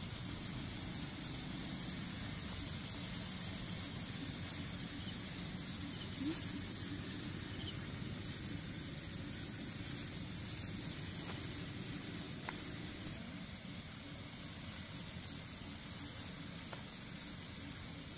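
Night insects, crickets, trilling steadily at a high pitch over a constant hiss, with a faint click about six seconds in and another about twelve seconds in.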